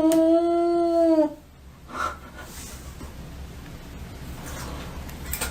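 A pet's long, sad howl held on one slightly wavering pitch, breaking off about a second in.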